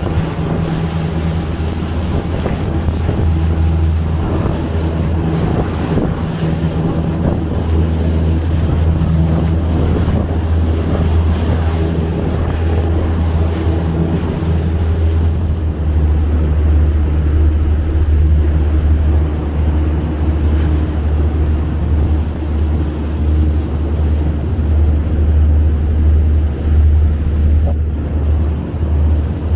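Ferry's engines droning steadily underway, a deep even hum, with wind buffeting the microphone in gusts.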